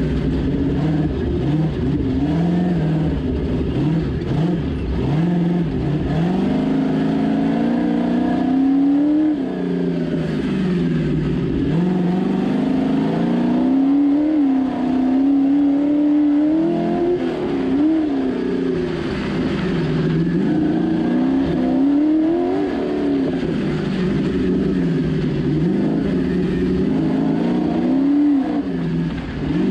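Ultra4 off-road race car's engine heard from inside the cockpit, revving up and falling back over and over as the throttle is worked on and off at low speed.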